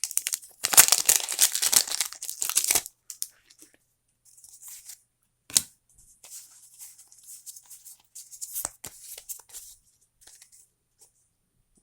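Foil booster pack wrapper being torn open and crinkled, loud for about the first three seconds, then fainter rustling as the cards are handled, with one sharp click about halfway through.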